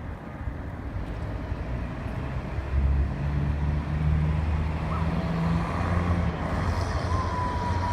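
Motor vehicle engine humming as it passes close by, loudest from about three to six seconds in, over general traffic noise. A thin, steady high tone sounds briefly near the end.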